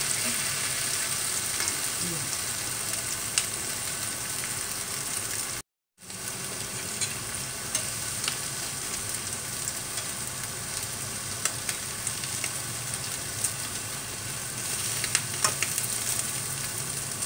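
Egg-battered anchovy and bean sprout fritters sizzling in oil in a nonstick frying pan, with scattered light taps and scrapes of a metal spatula as they are pressed and turned. The sound cuts out completely for a moment about six seconds in.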